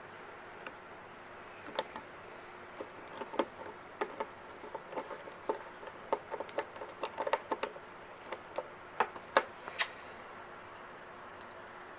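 Irregular small clicks and taps of plastic and metal parts being handled and fitted as a VTech DX2 watch is put back together by hand. The clicks come in a loose run from about two seconds in until about ten seconds in, over a faint steady hum.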